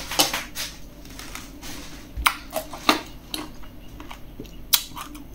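Close-miked eating noises: irregular sharp clicks and light taps from chewing and from cutlery, the loudest about three seconds in and again near the end.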